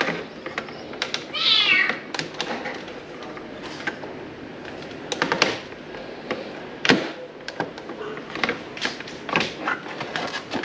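Plastic body panel of a Honda PCX scooter being eased off by hand: scattered clicks, snaps and rubbing from the panel and its clips. A short wavering high squeal sounds about a second and a half in.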